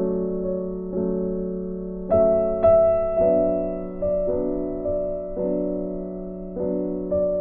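Background music: slow, gentle piano or electric-piano chords, struck about once a second and left to ring.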